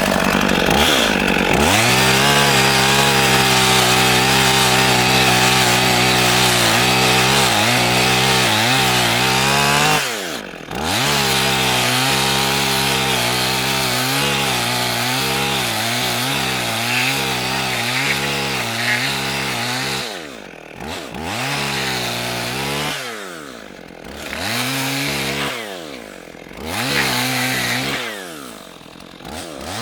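Two-stroke petrol chainsaw ripping lengthwise through a pine log at full throttle, the chain cutting wood with a steady high engine note. About a third of the way in the revs drop briefly and climb back. In the last third they drop and rise four more times as the throttle is eased and reapplied.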